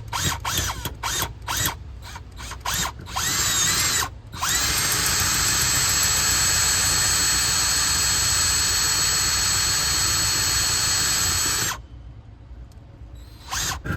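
Power drill with a 16 mm bit boring into the outside face of a wooden front door to widen a peephole hole. It runs in a series of short trigger bursts that rise and fall in pitch, then holds a steady run of about seven seconds that stops abruptly, with one more brief burst near the end.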